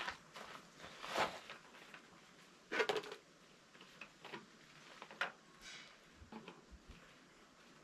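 Scattered knocks and clicks of handling, the loudest a short clatter about three seconds in; no engine is running.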